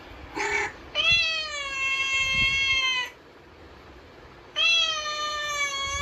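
Recorded cat meows played back as a cat sound test: two long, drawn-out meows about two seconds each, the pitch sliding down slightly at the end of each, with a short cry just before them.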